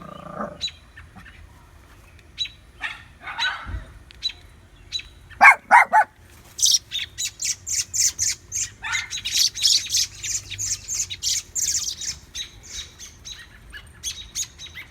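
Adult birds scolding in alarm at a puppy near their fledgling. Scattered short calls come first, then three loud, lower squawks about five seconds in, then a long fast run of short, harsh, high notes that thins out near the end.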